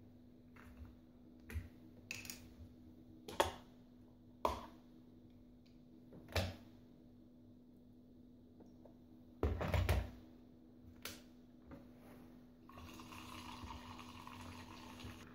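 Handling clicks and knocks as an oat-drink carton is opened and the metal jug of an Aeroccino 3 milk frother is filled, with a louder clatter about ten seconds in as the jug goes back on its base. A couple of seconds before the end the Aeroccino 3 milk frother starts, a steady whirring.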